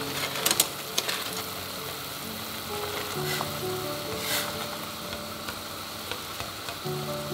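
Instant noodles boiling in a stainless steel pot, the water bubbling with a steady hiss as chopsticks stir the noodles, with a few light clicks in the first second and one more midway. Soft background music with held notes plays underneath.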